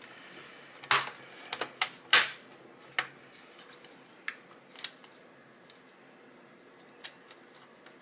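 Small sharp clicks and taps of hands handling parts inside an open Lenovo ThinkPad T520 laptop during reassembly. There are several in quick succession over the first three seconds, the loudest about two seconds in, then a few sparser light ticks.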